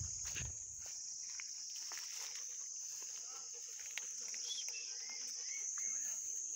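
Steady high-pitched drone of insects, with a few short bird chirps in the second half and occasional light clicks.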